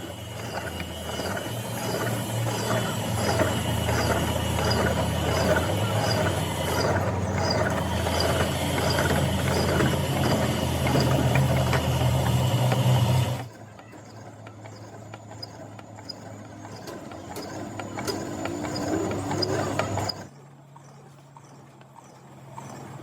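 Workshop machine motor running with a steady hum and a regular click about twice a second. The motor cuts out about 13 seconds in, and quieter clicking continues afterwards.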